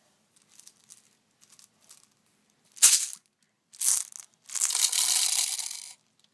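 Rustling and rattling as BBs are handled and loaded into the top of a plastic Nerf magazine: a few faint clicks, then three noisy bursts, the last about a second and a half long.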